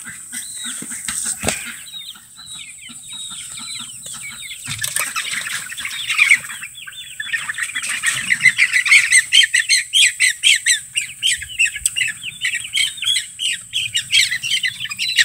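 A group of baby chicks peeping, many short high cheeps in quick succession, sparse at first and growing dense and continuous from about six seconds in. A single knock about a second and a half in.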